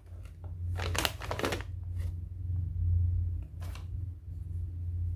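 Plastic face-mask pouch rustling and crinkling as a cloth mask is pulled out of it: a few short rustles, about a second in and again near four seconds, over a steady low hum.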